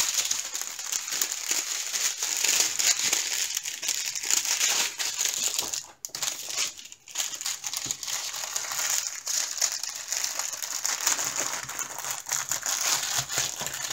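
Clear plastic packaging crinkling as it is handled, a continuous dense crackle with two short pauses about six and seven seconds in.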